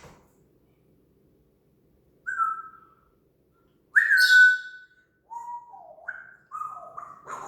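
African grey parrot whistling: a short falling note about two seconds in, a louder held note about four seconds in, then a quick run of short whistled notes sliding down and up near the end.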